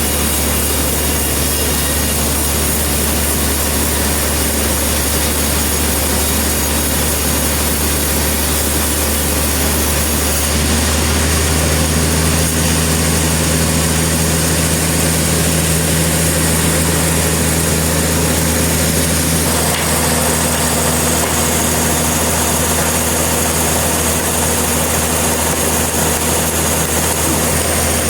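Sawmill engine running steadily with a low hum. It gets slightly louder and changes pitch about ten seconds in, and shifts again near twenty seconds.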